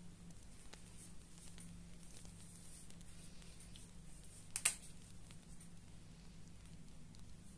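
A single sharp click about halfway through, as a highlighter's cap is pulled off, over a low steady hum and a few faint ticks from handling on the table.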